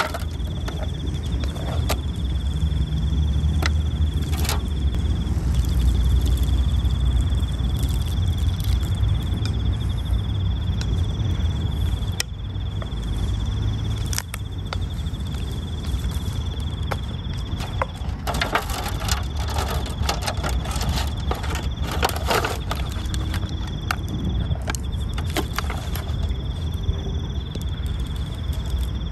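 Noodle soup poured from a pot into an aluminium foil tray, with a cluster of scrapes and clinks against the foil about two-thirds of the way through. A high, steady insect trill, broken now and then, and a low rumble run underneath.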